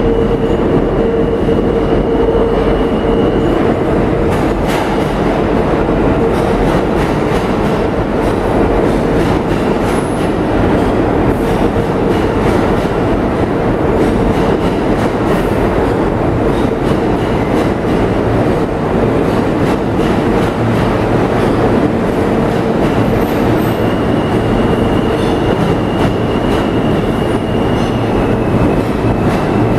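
R160 subway train in an underground station: a loud, even rumble with a constant low hum and a faint high whine running over it.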